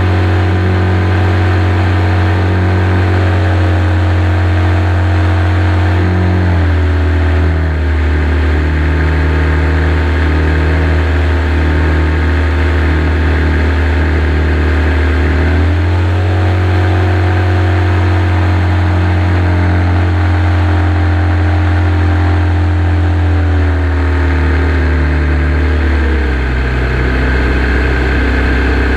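Evolution 7-77 seven-cylinder radial petrol engine of a large RC Ag-Cat running in flight, heard close from an onboard camera. Its engine speed drops about six seconds in, climbs back about sixteen seconds in, and drops again in two steps near the end.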